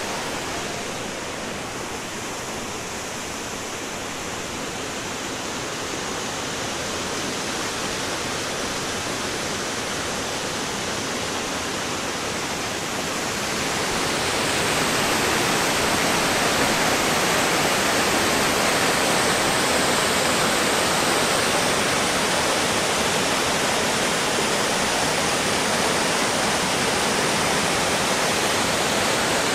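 Steady rush of fast-flowing river water, which grows louder about halfway through.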